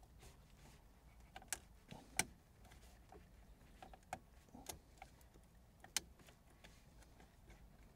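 Faint, scattered clicks and small knocks of a plastic wiring-harness connector being worked loose from a car's head unit behind the dashboard, with a few sharper clicks, the clearest about two seconds in and near the end.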